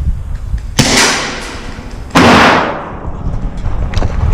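Two loud bangs about a second and a half apart, each with a sharp start and a hissing tail that fades over about half a second; the second is louder. A few faint clicks follow near the end.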